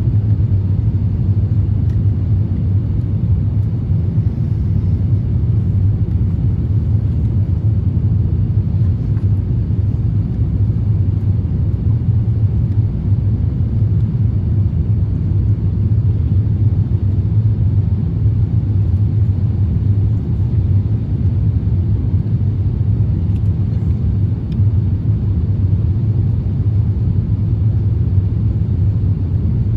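Steady low rumble inside the cabin of an Airbus A350-1000 with its Rolls-Royce Trent XWB engines running: engine and airflow drone, unchanging throughout.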